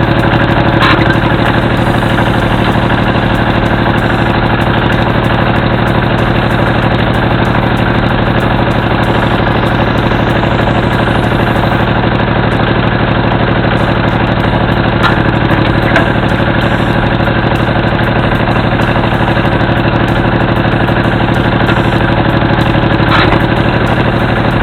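Kubota L2000 tractor's diesel engine idling steadily.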